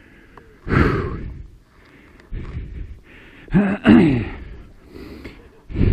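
A man's loud gasping breaths, several in a row, with a short strained grunt falling in pitch a little past halfway: heavy breathing from the effort of wrestling a dirt bike past a fallen log.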